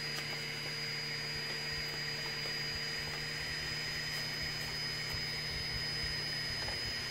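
Anet A3 3D printer's cooling fans running steadily while the printer sits heated, a continuous whirr with a faint high whine through it; no motors are moving.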